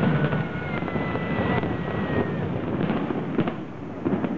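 A fireworks display, with shells bursting and crackling in quick succession. A thin whistling tone falls slightly in pitch over the first two seconds or so.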